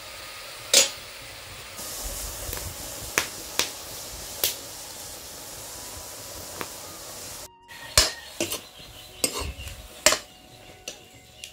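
A metal ladle stirring frying papaya flowers in a black wok, knocking and scraping against the pan about eight times. Under it, oil sizzles steadily.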